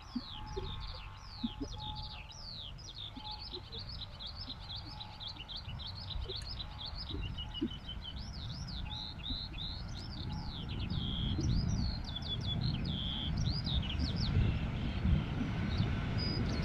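Small birds singing in fast, continuous chirps, over the low rumble of a passing electric-hauled freight train that grows louder toward the end.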